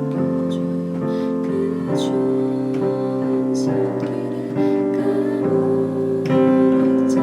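Instrumental music of slow, held chords that change about every second.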